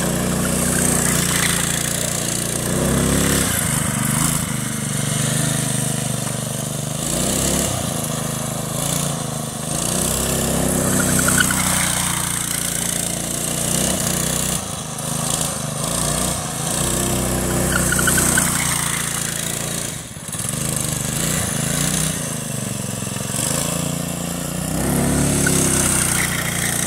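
Predator 212cc single-cylinder four-stroke go-kart engine, fitted with a Mikuni 22mm carburettor and running with its governor disabled, driving the kart. The engine note rises and falls several times as the kart speeds up, slows and turns.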